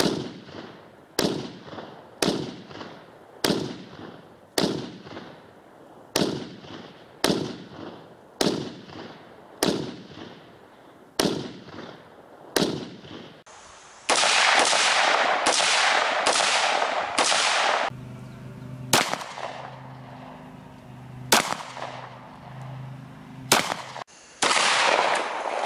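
Rifle shots: about a dozen single cracks at a steady pace of roughly one a second, each trailing off in an echo. Then a few seconds of loud rushing noise, followed by three more shots a couple of seconds apart.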